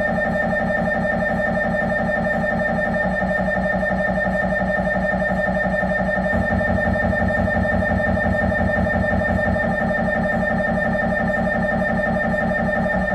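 Siemens Magnetom Avanto 1.5 T MRI scanner running a head-scan sequence: a loud, steady, fast pulsing buzz with a high tone over it. Its lower rhythm shifts slightly about three seconds in and again about six seconds in.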